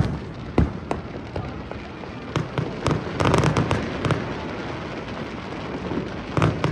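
Aerial fireworks going off: sharp bangs of bursting shells, then a dense run of crackling pops a little before halfway, with more near the end.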